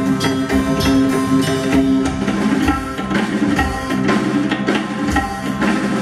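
A live band playing Indian fusion music: an electric bass holding low notes under dense, rapid hand-percussion strokes.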